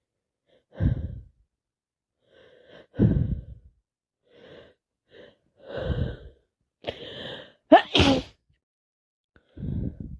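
A woman sneezing again and again, about six sneezes in a row a second or two apart, with quick gasping breaths between them; the loudest and sharpest comes about eight seconds in. These are the fits of sneezing of a streaming head cold with sinusitis.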